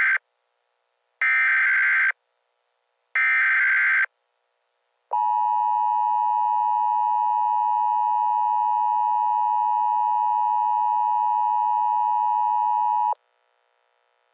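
Emergency Alert System signal: the end of one digital header burst and two more, each about a second long with a second's gap between them. Then the steady two-tone attention signal holds for about eight seconds and cuts off abruptly.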